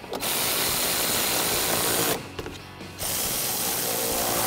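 Powered ratchet with an 8mm socket on an extension running twice, about two seconds each time, as it drives screws into a plastic inner fender liner.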